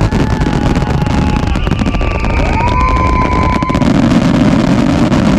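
Fireworks grand-finale barrage heard up close: a continuous low rumble of shell bursts under dense crackling. About halfway through, a high whistle rises and holds for over a second.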